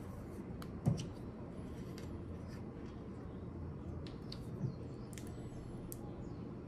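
A glass vinegar bottle being handled as its plastic screw cap is twisted off and set down on the counter: a few faint clicks and light knocks, the sharpest about a second in, over a low steady room hum.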